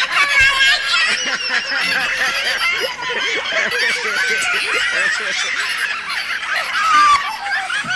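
A dense chorus of many high-pitched cartoon voices laughing at once, overlapping without a break, with one louder laugh near the end.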